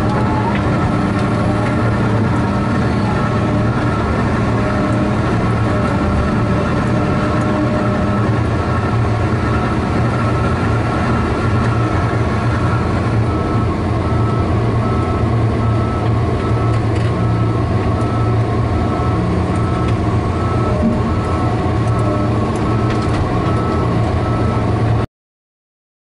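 Diesel engine of a John Deere 909 KH feller buncher running steadily, heard from inside its cab, with a deep hum and a few steady tones above it. The sound cuts off suddenly near the end.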